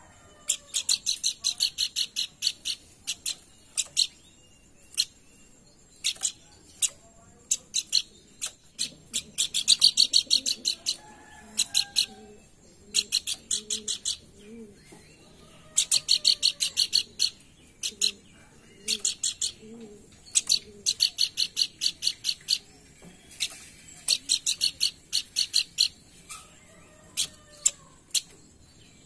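Pelanduk bukit bird singing in bursts of rapid, high-pitched repeated notes, each burst lasting about a second, coming again and again with short gaps.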